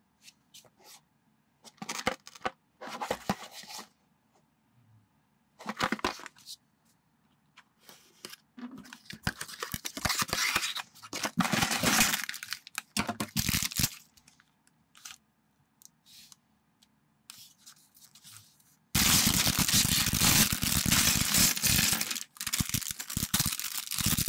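Cardboard box and plastic parts bags of a small LEGO set being opened by hand: short bouts of rustling and tearing with quiet gaps between. The longest, loudest stretch of crinkling and rattling comes about three-quarters of the way in, as a plastic bag is torn open and its LEGO pieces are tipped out onto the table.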